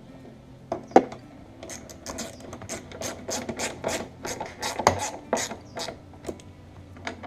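Hand work refitting a Jeep Grand Cherokee tail light assembly: a run of quick, irregular clicks and scrapes from about one and a half seconds in until about six seconds, as the assembly is handled and its screws are driven back in.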